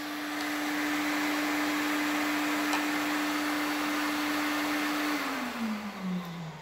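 Circular saw with a freshly sharpened diamond blade running free after a dry cut through porcelain tile, its motor hum steady, then switched off about five seconds in and spinning down with a falling pitch. A dust extractor's steady hiss runs underneath.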